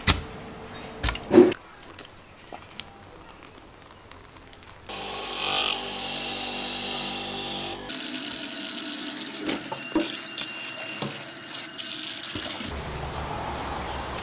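A few sharp knocks in the first seconds, then a tap running water into a stainless steel sink for about seven seconds, starting about five seconds in and stopping near the end.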